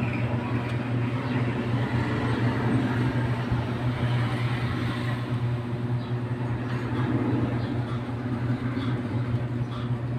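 Tosunra MK9600 power amplifier powered up on the bench for testing after repair: a steady low hum with an even rushing noise over it.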